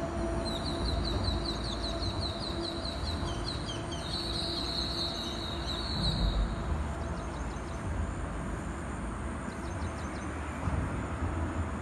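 A small bird gives a fast run of short high chips, then a brief dense high trill about four seconds in, with a few fainter runs of chips later, over a steady low rumble.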